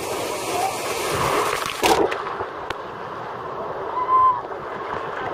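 Rough surf churning and sloshing around a camera held down in the waves, with a loud splash about two seconds in. A brief high-pitched tone sounds about four seconds in.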